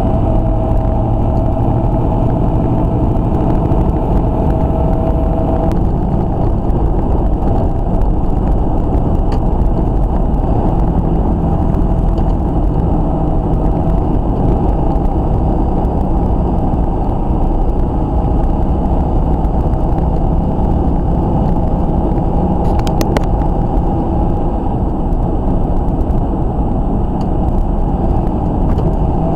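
Steady engine and road noise inside a semi truck's cab at highway speed. About six seconds in the sound changes abruptly and a steady hum drops out, and a few brief clicks come late on.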